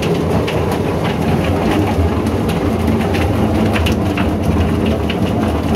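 Electric drum-type chicken-plucking machine running: a steady motor hum under a continuous irregular clatter.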